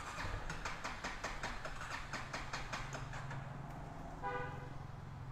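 Motorcycle's electric starter cranking the engine over without it catching yet: a steady low drone with rapid, even clicking. The bike is slow to start from having been left sitting. A short pitched tone sounds about four seconds in.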